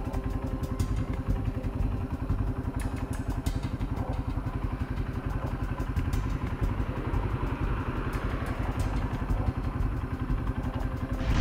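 Yamaha dual-sport motorcycle engine running steadily at idle as the bike creeps along at walking pace, with a rapid even pulse. A few light clicks come in the first few seconds.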